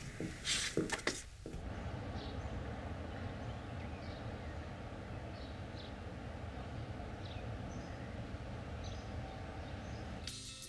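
Outdoor street ambience: a steady low background rumble with faint, short bird chirps scattered through it. Guitar music comes in near the end.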